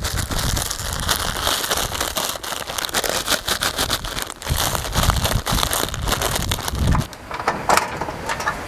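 A plastic snack packet crinkling and crackling as it is handled and squeezed out, with a few dull thumps among the crinkles.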